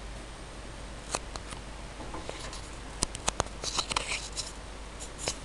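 A large paper sheet being handled and lowered: scattered sharp crackles and snaps, with a burst of rustling about three and a half to four and a half seconds in. A low steady hum runs underneath.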